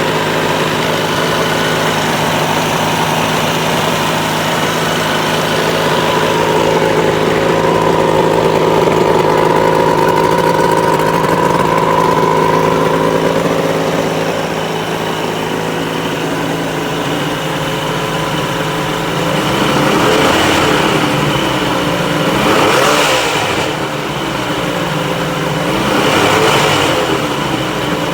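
1979 Mercury 115 hp inline-six two-stroke outboard motor running at a steady idle, then revved up and back down three times, a few seconds apart, near the end.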